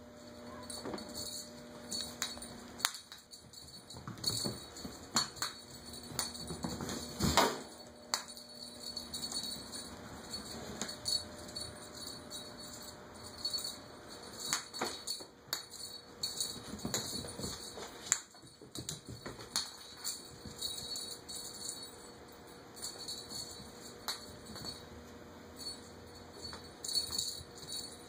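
A small bell jingling in short, irregular bursts as a cat toy is batted about on a tile floor. The loudest jingle comes about seven seconds in.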